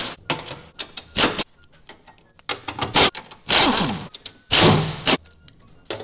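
Pneumatic impact wrench in repeated short bursts, about eight in a few seconds, spinning out the screws of a car's underbody shield.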